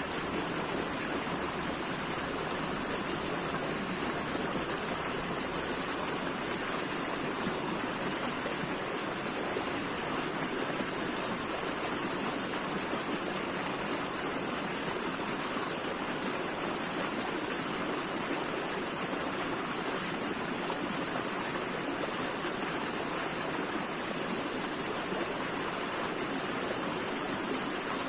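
Running water flowing in a steady, unbroken rush with a bright hiss on top.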